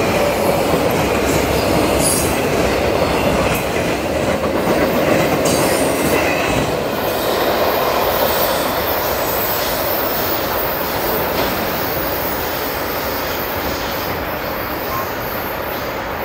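Autorack freight cars rolling by, their steel wheels running on the rails in a steady loud rumble that eases slowly near the end as the last cars pull away.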